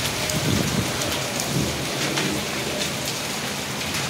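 Hailstorm with rain: a steady hiss of falling rain, scattered with sharp ticks of hailstones striking.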